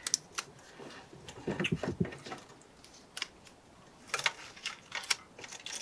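Light, irregular plastic clicks and ticks with soft handling rustle as 35mm film is fed by hand onto a plastic developing-tank spiral reel.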